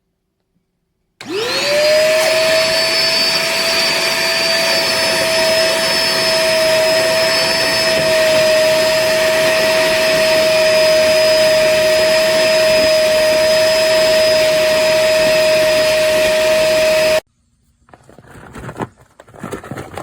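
Koblenz portable wet/dry shop vacuum switched on about a second in, its motor spinning up to a steady high whine with a rush of air. It runs steadily, then stops abruptly near the end.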